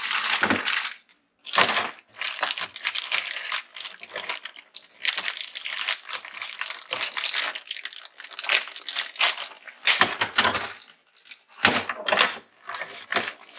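Packaging being handled: repeated crinkling and tearing in irregular bursts as new snowmobile keel bars are unwrapped.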